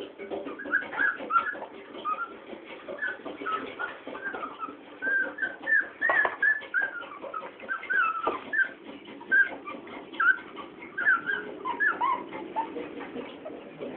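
Newborn Chow Chow puppies squeaking and whimpering as they suckle. Many short high squeaks come irregularly, a couple each second, several falling in pitch.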